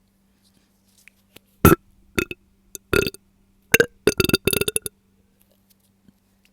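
A young woman burping, a series of short burps starting about a second and a half in, the last a quick run of several in a row. The burps come from bloating that she puts down to drinking milk.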